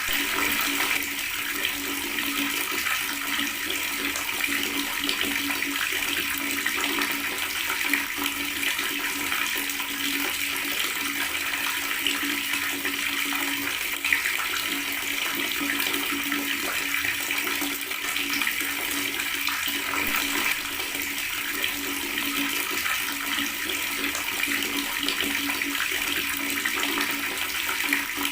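Water running and gurgling from a tap in a steady, continuous stream.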